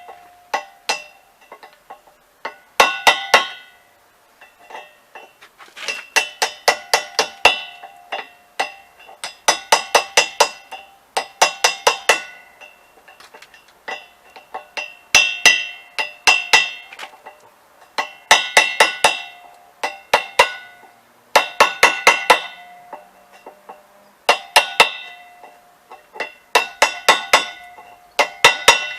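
Rapid hammer taps on an old metal wheel, in about ten quick bursts of five to eight strikes. The metal rings with a clear bell-like tone after each burst.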